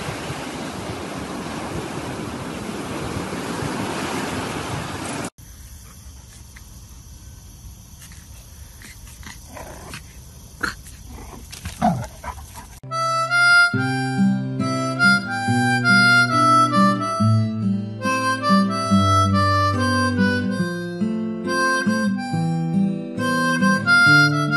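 Surf and wind on a beach for about five seconds; after a cut, a quieter stretch with a few knocks and a dog's short whine that slides in pitch. From about thirteen seconds in, instrumental music with a bright note-by-note melody over a bass line.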